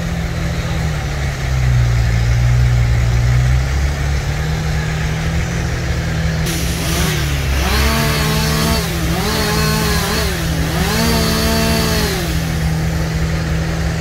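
A bucket truck's engine runs steadily. About halfway through, a chainsaw up in the tree is revved three times, its whine rising, holding and dropping with each cut through the limbs.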